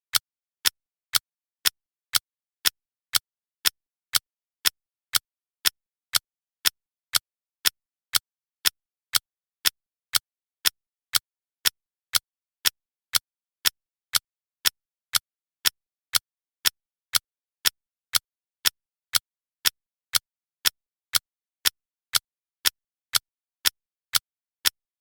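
Clock-style ticking of a countdown timer: sharp, evenly spaced ticks, about two a second, with silence between them.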